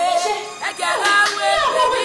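Women's voices singing without instruments, with held notes and pitch glides.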